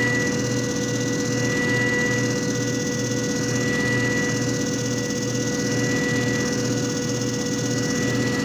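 JFJ Easy Pro disc repair machine running: a steady motor whine and hum with a low pulse about twice a second, swelling slightly in loudness about every two seconds.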